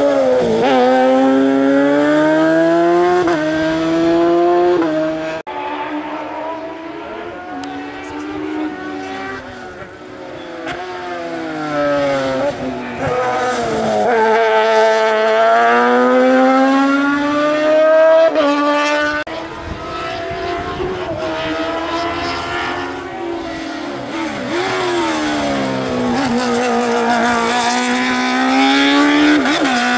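Hill-climb racing cars' engines revving hard, the pitch climbing through each gear and dropping at each shift, then falling as they lift and rising again on the throttle. There are three runs, each cut off abruptly, about 5 s and 19 s in.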